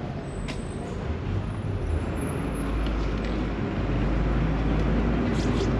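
A motor vehicle's engine running close by, a low rumble that grows louder about two and a half seconds in and then holds steady.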